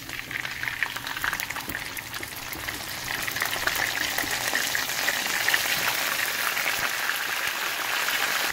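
Finely crushed garlic sizzling and crackling in hot oil in a pan, getting louder over the first few seconds.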